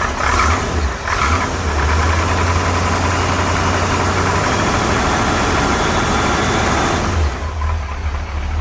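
Small-block Chevy 350 V8 running shortly after a cold start without choke. It runs fuller and a little louder from about a second in, then settles back near the end. It has a couple of rattles and a sound the owner puts down to worn lifters.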